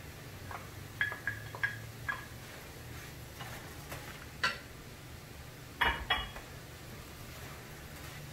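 A spoon clinking against a glass bowl as sliced mushrooms are scraped into a skillet: a few light, ringing clinks, a single one a little later, then two louder knocks close together.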